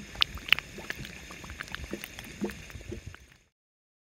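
Mud pot bubbling: thick mud gurgling, with gas bubbles bursting in irregular sharp pops and low plops. The sound cuts off suddenly about three and a half seconds in.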